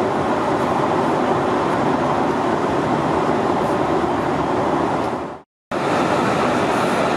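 Steady in-flight cabin noise of a Boeing 737-800 airliner with CFM56-7B engines: an even rush of airflow and engine noise heard from a front-row window seat. About five and a half seconds in it fades out and drops away for a moment, then comes back at once.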